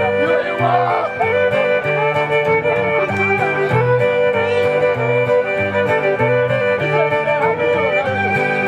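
Cajun band playing an instrumental: a fiddle carries the melody over held chords from a diatonic accordion, and an acoustic guitar strums chords with an alternating bass note on the beat.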